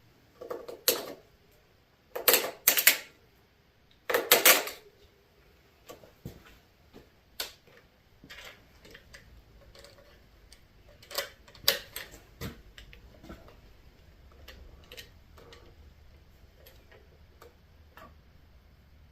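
Short, sharp clicks and scrapes of a hand tool working in a motorcycle handlebar end, picking at what seems to be glue holding an insert in place. A few loud ones come in the first five seconds, two more stand out around seven and twelve seconds in, and fainter taps follow.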